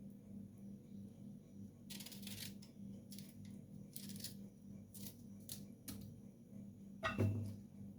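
A knife cutting and scraping the peel off a lemon: a string of short scrapes and clicks, with a louder knock about seven seconds in. A steady low hum runs underneath.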